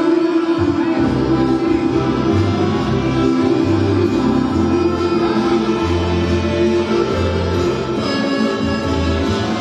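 Street accordion playing a dance tune: sustained chords in the right hand over a steady left-hand bass pattern of short held notes.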